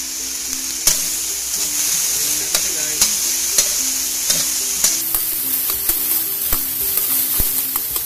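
Beef pieces frying and sizzling in a metal wok while a metal spoon stirs them, clicking and scraping against the pan many times.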